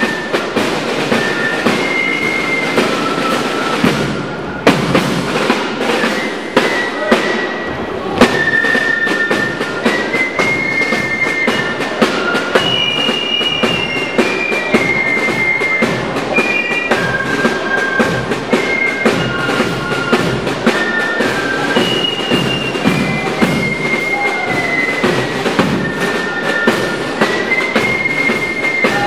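Marching band music: a high flute-like melody of held notes over steady, dense drumming.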